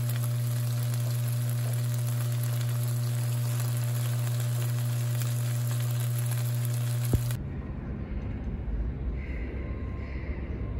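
Fried rice with cracked eggs sizzling in a hot pan over a steady low hum, stirred with a spatula. It cuts off after about seven seconds to a cat purring close up.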